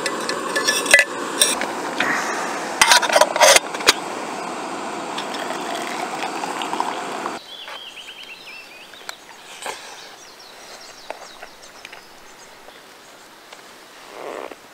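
Metal clinks of a thermos cup and tea infuser being handled over the steady hiss of a canister gas stove burner heating a kettle. About seven seconds in the hiss cuts off, leaving faint clinks of a spoon on a small metal pot.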